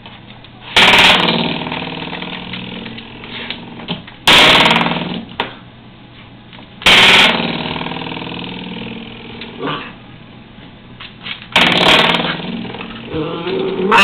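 Coiled-spring door stop flicked by a puppy, twanging with a buzzing boing: four loud twangs a few seconds apart, each ringing and fading over a second or two, with a few lighter twangs between.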